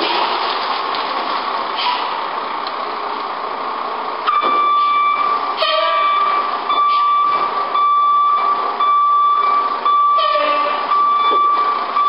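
A fire engine's diesel running as the truck manoeuvres in the street. From about four seconds in, a steady high beep repeats about once a second: the truck's reversing alarm as it backs toward the station bay.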